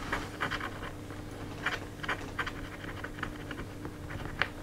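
A scratch-off lottery ticket being scratched: a run of short, dry scrapes in uneven strokes.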